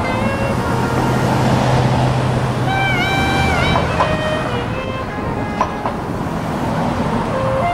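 City street traffic with a vehicle engine humming low for the first three and a half seconds or so. Over it a tune plays, one note at a time, with some notes sliding and dipping in pitch.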